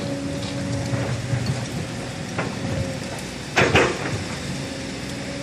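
Construction-site noise: a steady machine hum, a small knock, and a louder sharp double knock about three and a half seconds in.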